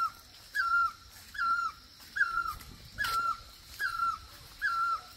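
A dog whining in short, high, falling whines, about once a second.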